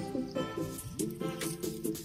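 Background music: a quick, repeating melodic figure over a steady beat.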